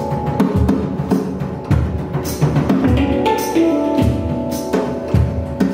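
Handpan played by hand: ringing steel notes over deep low strokes, mixed with sharp percussive hits in a steady groove.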